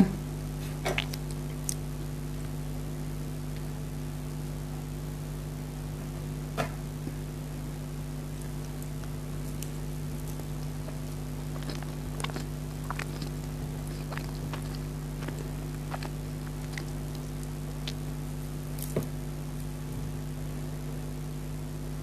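A steady low hum with a handful of faint, scattered clicks and ticks from eating cake: soft chewing and mouth sounds, and a fork picking at a pastry near the end.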